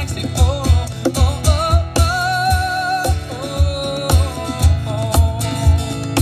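Live acoustic duo: a cajon slapped in a steady bass beat about twice a second under a strummed acoustic guitar, while a man sings, holding one long note about two to three seconds in.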